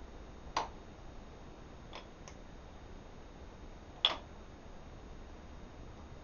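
A few sharp clicks and knocks from tools and wood being handled at the workbench. There is a louder click about half a second in, two faint ticks around two seconds, and another loud click about four seconds in.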